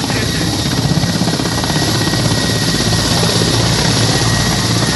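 Mil Mi-17 military helicopter hovering low and setting down close by: loud, steady rotor beat with a thin, constant turbine whine over it.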